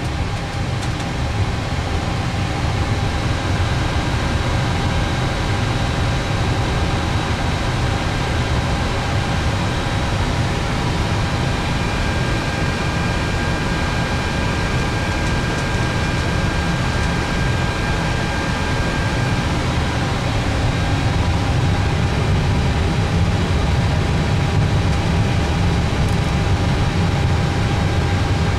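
Steady cockpit noise of a jet airliner with its engines running: a low rumble and hiss under a few faint, thin, steady whines.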